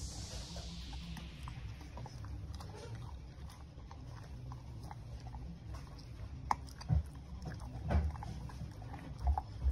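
Dog crunching and chewing a hard dog biscuit. Small clicks of the teeth build to a few louder crunches in the last third.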